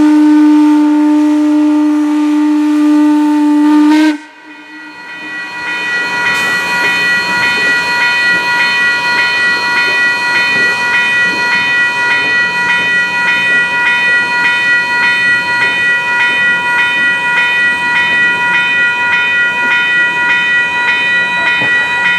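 Steam whistle of Western Maryland Scenic Railroad 2-6-6-2 steam locomotive 1309 blowing one long steady note that cuts off about four seconds in. The locomotive's bell then rings steadily, struck a little under twice a second.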